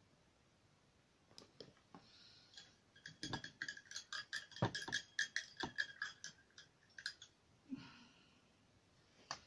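A quick run of clicks and light knocks from hard objects being handled, densest in the middle, with a faint ringing tone under the loudest clicks. It is likely the painter's tools and jars being moved about between strokes.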